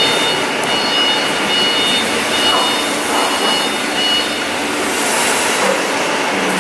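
Loud, steady machine noise, with a thin high-pitched whine that cuts in and out several times in the first few seconds.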